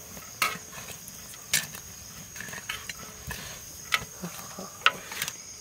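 Metal ladle stirring and turning cooked biryani rice in a large metal pot, with a handful of scattered scrapes and clinks against the pot. A steady high insect trill runs behind it.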